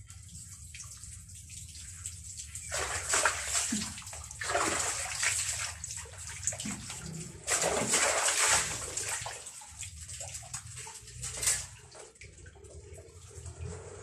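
Clothes being hand-washed in a basin of water: water sloshing and splashing as the wet garments are plunged, lifted and wrung, in several loud bursts a few seconds apart.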